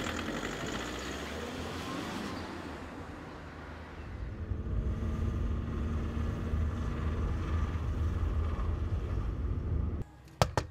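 A car pulls away and its noise fades over the first two seconds, followed by the steady low rumble of engine and road heard inside a moving car. Near the end the sound drops off suddenly and two sharp knuckle knocks land in quick succession.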